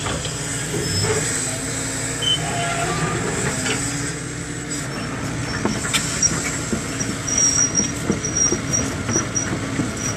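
Hydraulic excavator running and travelling on its steel tracks: steady engine hum with track clatter, and short high squeaks repeating through the second half.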